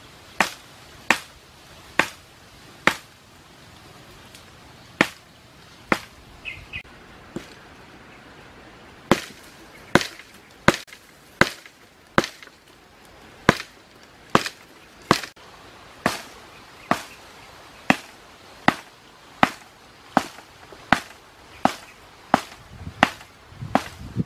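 A blade chopping repeatedly into the base of a slender woody stem, sharp single blows about one a second with two short pauses, faster toward the end.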